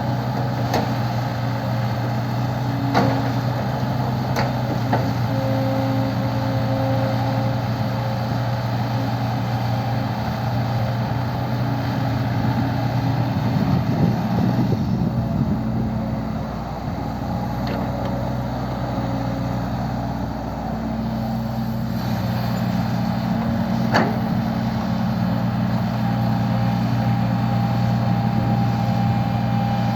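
Heavy diesel engines of a large excavator and coal trucks running steadily, with a few sharp knocks and a shift in engine note about halfway through.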